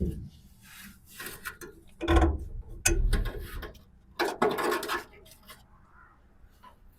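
Metal scraping and knocking as the battery hold-down hook on a 1966 Mustang is worked loose, in several rough bursts with a sharp click about three seconds in.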